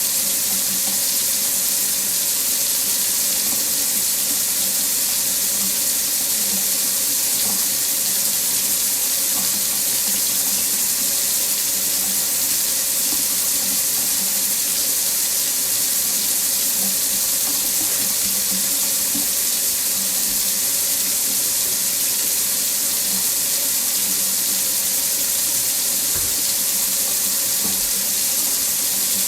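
Water running steadily from a faucet into a sink, an even hiss of splashing water with no change in flow.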